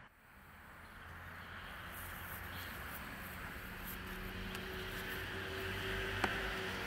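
Steady outdoor background noise with a low hum, fading in at the start, and a single sharp click near the end.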